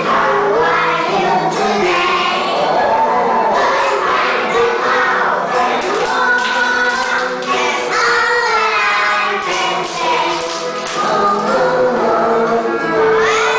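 A group of young children singing an English song together over musical accompaniment.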